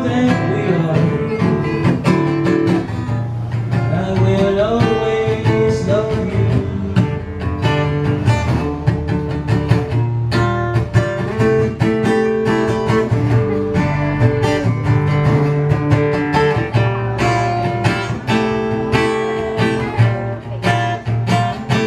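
Live acoustic guitar music: a strummed slow ballad played on an acoustic-electric guitar, in a passage between sung lines.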